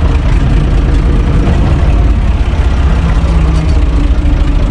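UTB 445 tractor's diesel engine running steadily as the tractor moves along, heard loud from inside its cab.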